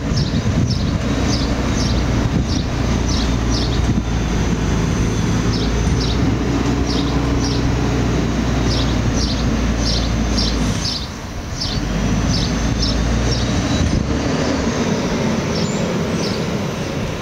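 Garbage truck engine running in the street: a steady low rumble that dips briefly about eleven seconds in, with short high chirps over it.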